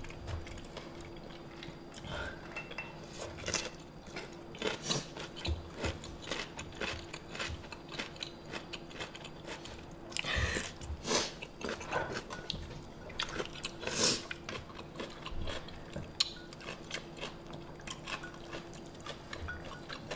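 Close-miked mukbang eating sounds: chewing and slurping spicy rice cakes and ramen noodles, with scattered clicks of chopsticks against the bowl and pot. A faint steady hum runs underneath.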